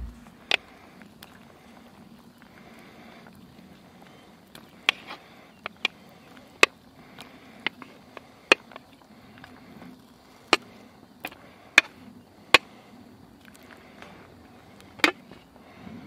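Wooden spoon clicking and knocking against a steel plate and pot rim as salami slices are pushed off into a pot of soup: about fifteen sharp, irregular clicks over a faint steady hum.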